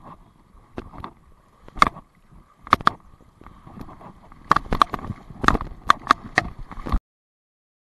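Water splashing in a string of sharp bursts as a big hooked brown trout thrashes at the surface in shallow water near the bank while it is being netted. The sound cuts off suddenly about seven seconds in.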